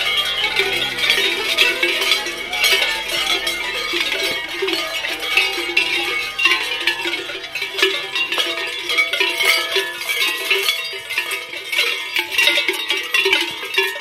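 Large cowbells worn by running Krampus figures, clanging and jangling in an irregular, continuous din. A low drone underneath fades out about halfway through.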